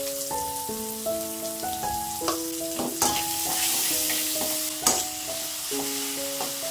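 Chopped chili, tomato and shallot sizzling as they are stir-fried in a metal wok, with a slotted metal spatula scraping and knocking against the pan, sharpest about three and five seconds in. Background music with a light melody plays throughout.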